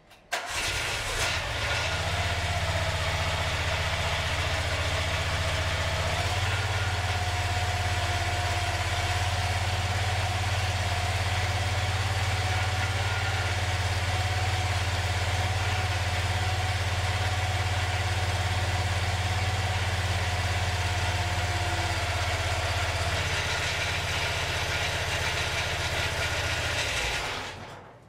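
Home-built skid steer's Loncin engine starting at once and running steadily, with a steady whine over its note. The engine note shifts a few seconds in and again near the end, then the engine is shut off and runs down.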